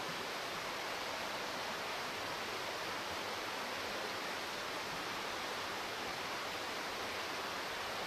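Steady, even rushing of running water, such as a forest stream, with no breaks.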